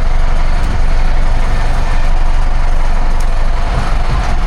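Sport-fishing boat's engines running steadily, a loud, constant low rumble with a steady hum above it.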